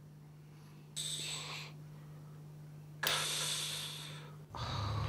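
A person breathing audibly, two breaths: a short one about a second in and a longer one from about three seconds in that fades away, over a low steady hum.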